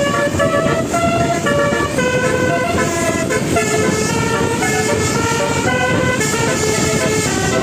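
A 12-note telolet bus horn, a multi-trumpet horn, playing a quick melody. Its notes change every few tenths of a second over a loud, steady rumble.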